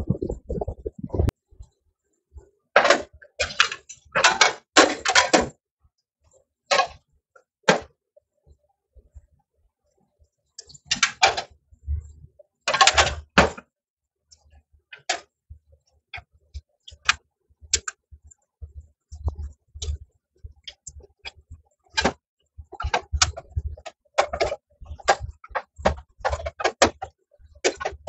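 Vinyl electrical tape being pulled off the roll in short rips and wrapped around run capacitors and wire connections, with scattered clicks and rustles of handled wiring between the rips.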